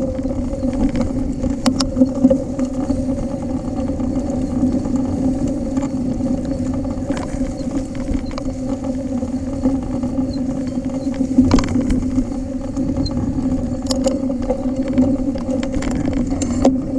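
Bicycle being ridden along a dirt trail: a steady hum over a low rumble, with scattered sharp clicks and knocks from the bike going over bumps.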